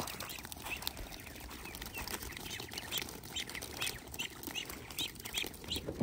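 A flock of young mulard and Agidel ducks peeping, many short high calls overlapping throughout.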